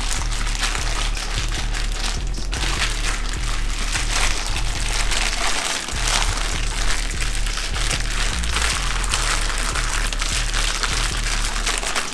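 Background music with a steady beat over the crinkling of a plastic zip-top bag as seasoned chicken is massaged in it by hand.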